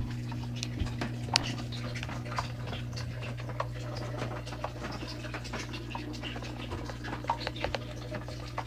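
Small aquarium filter running in a betta vase: a steady low hum with irregular light ticks and patter throughout.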